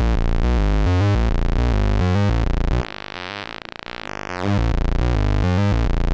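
ARP Avatar synthesizer's Oscillator 1 playing a fast repeating run of low notes as a pulse wave while its pulse width is adjusted. About three seconds in the tone thins and drops in level for about a second and a half, then comes back full.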